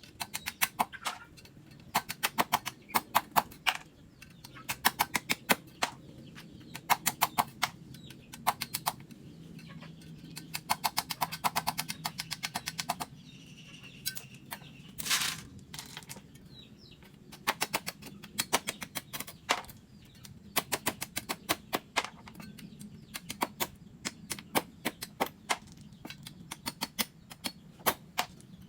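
Rapid runs of sharp knocks, several a second, coming in bursts with short pauses between them, and one longer scraping burst about midway.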